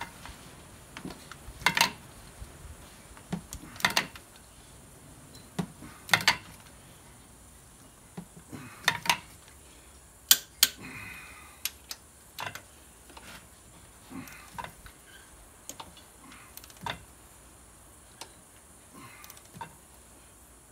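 A click-type torque wrench tightening the cylinder head bolts of an International DT466E diesel engine. There are sharp metallic clicks about every two seconds, some of them doubled as the wrench breaks over at its set torque, with softer ratchet clicks and handling noise in between.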